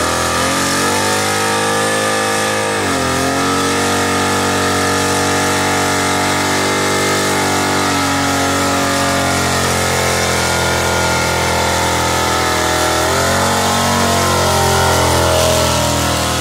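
Full-size Ford Bronco's engine held at high revs through a burnout while the rear tyres spin and smoke. Its pitch dips and climbs back twice, about three seconds in and again near thirteen seconds, over a steady hiss of tyre noise.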